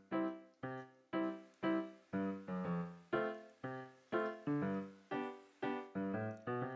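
Background music: a melody of single struck notes, about two a second, each fading away before the next.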